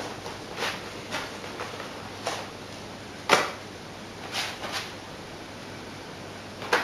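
Light clicks and knocks, irregular and about seven in all, from model railway track pieces being handled and fitted on the baseboard; the loudest comes about three seconds in.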